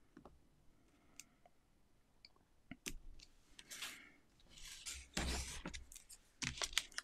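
Cardstock card being handled and slid across a cutting mat: a few light taps at first, then bursts of paper scraping and rustling, with a soft bump about five seconds in as the card is set down.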